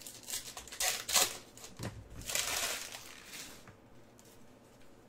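Trading card pack wrapper crinkling as it is handled and torn open: a run of short crackles, then a longer tearing rasp about two seconds in.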